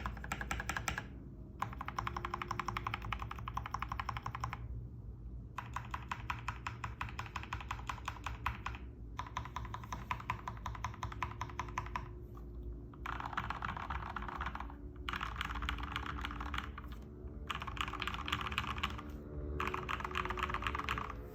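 TM680 mechanical keyboard with Gateron Milky Yellow linear switches being typed on quickly, in runs of rapid keystrokes broken by short pauses about every two to four seconds.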